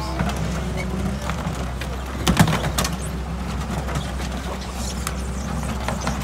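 Case 721F wheel loader's diesel engine running steadily as its bucket hoists a car, with a sharp clunk and a few lighter knocks about two and a half seconds in.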